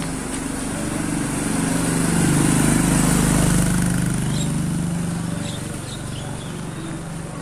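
Small motor scooter engine passing close by, growing louder to a peak about three seconds in and then fading away.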